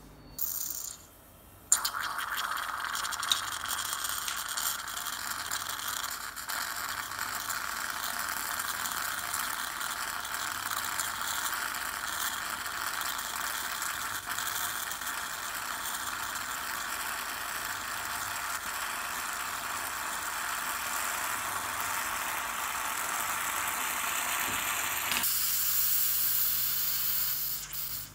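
Bialetti Brikka moka pot brewing over a gas flame: coffee bursts up through the spout into the upper chamber with a steady crackling, sputtering gurgle. Near the end it changes to a higher, brighter hiss of steam, then cuts off suddenly.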